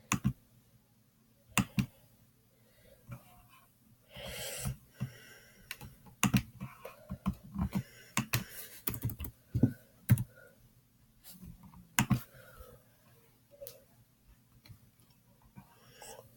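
Computer keys clicking in irregular taps and short runs, with a brief noisy burst about four seconds in.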